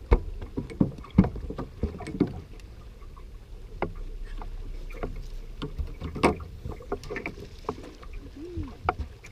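Irregular knocks and thumps on a bass boat's deck as a freshly caught bass is landed and handled, with a cluster of sharp knocks in the first couple of seconds and the loudest knock a little after halfway.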